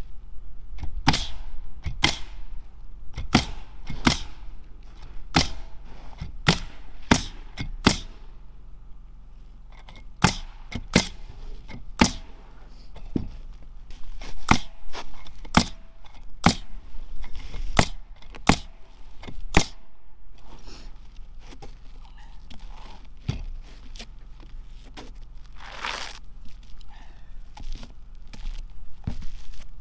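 Pneumatic roofing nailer firing nails into asphalt shingles, sharp shots about once a second for most of the time, then thinning out to occasional softer knocks and rustling near the end.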